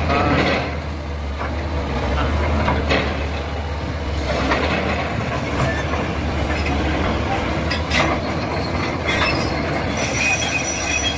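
Heavy diesel machinery running steadily: a crawler excavator and a Caterpillar 966F wheel loader at work, with scattered metallic clanks and knocks and a brief high-pitched squeal near the end.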